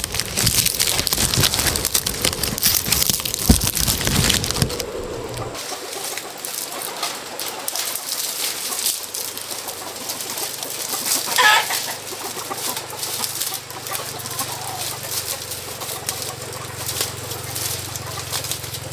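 Chickens clucking, with one louder call about eleven seconds in. For the first five seconds a loud rustling noise covers them, then it stops abruptly.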